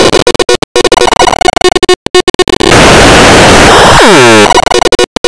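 Loud, heavily distorted and clipped noise from an effects-processed cartoon soundtrack, chopped by rapid stuttering cut-outs with a few held tones. About two and a half seconds in it turns into a steady blast of noise, with a sweeping flanger-like whoosh near the end before the stuttering returns.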